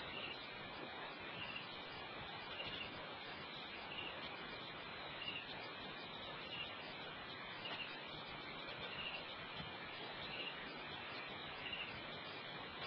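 Steady hiss with a short, high chirp from a small animal repeating about once a second.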